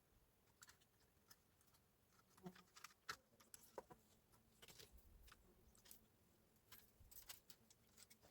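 Near silence with faint, irregular clicks and small taps.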